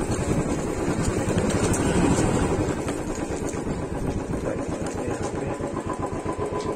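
Motorcycle engine running as the bike rolls slowly and eases off; about halfway through it settles into a slow, even beat of firing pulses.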